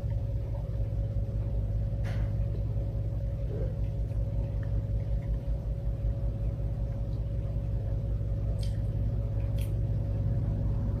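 A steady low rumble with a faint constant hum above it and a few faint clicks.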